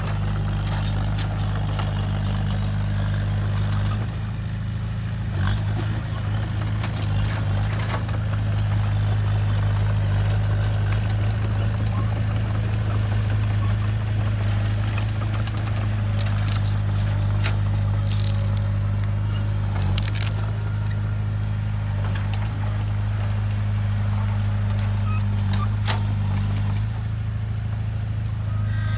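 Heavy construction machine's diesel engine running steadily at a low pitch, with occasional sharp clanks and knocks.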